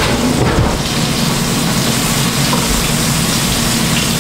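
Burger patties sizzling steadily in a frying pan on the stove.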